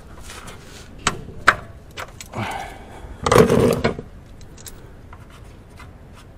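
A socket wrench loosening a car's oil-pan drain bolt: a few sharp clicks and knocks of metal tools, with a louder, longer noise about three seconds in.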